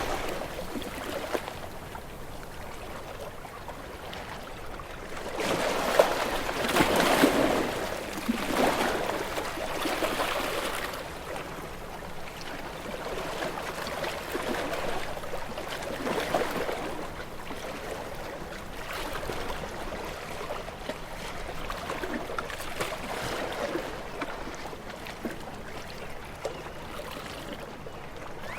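Ocean waves breaking against rocks: repeated surges of noisy wash, the strongest about six to seven seconds in, with quieter wash between them.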